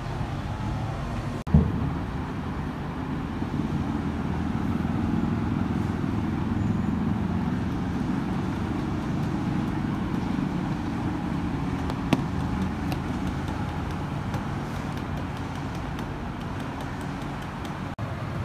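A steady low mechanical rumble from a running motor, with a sharp knock about a second and a half in and a faint click about twelve seconds in.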